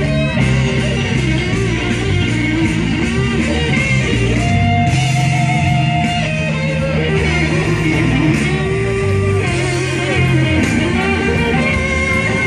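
Live band playing, led by an electric guitar solo with held and bent notes over a steady bass line.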